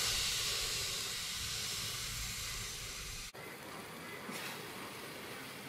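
Marinated rump steak sizzling on the grate over hot charcoal: a dense hiss, loudest as the meat first goes down, easing off, then dropping suddenly to a quieter sizzle a little past halfway.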